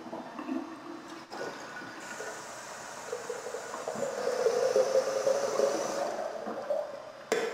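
Water running from a kitchen tap into a glass coffee carafe, its filling note rising a little and growing louder as the carafe fills. A sharp knock near the end.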